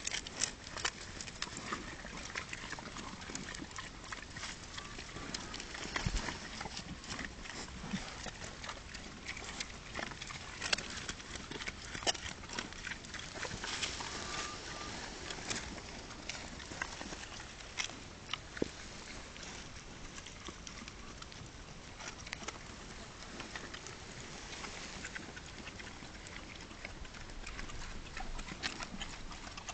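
Pigs eating sweetcorn leaves: irregular, crisp crunching and champing clicks as they chew and root in the soil.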